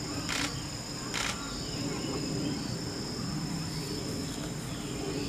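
Outdoor ambience: a steady high insect drone over a low murmur of distant voices, with two short sharp clicks in the first second or so.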